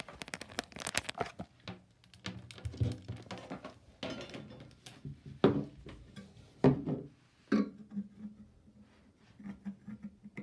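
Hands handling the plastic parts of a shower bidet kit: scattered irregular clicks, knocks and crinkling rustles.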